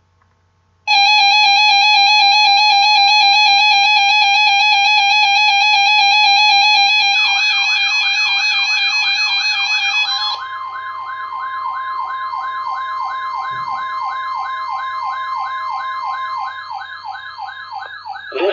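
Loud electronic siren-like alert tones. A warbling tone with many overtones starts about a second in. Rapidly repeating rising sweeps join it about seven seconds in. About ten seconds in the warbling tone gives way to a steady higher tone, and the sound tapers off near the end.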